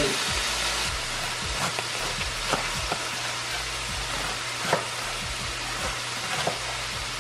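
Onions and bell peppers sizzling steadily in a stainless steel frying pan, with a chef's knife knocking irregularly on a wooden cutting board as cabbage is sliced thin.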